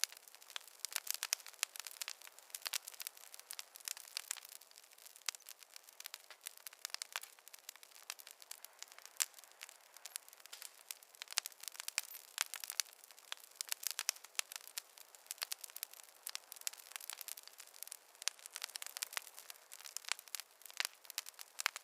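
Wood fire crackling, with many irregular small snaps and pops over a faint hiss and no low rumble.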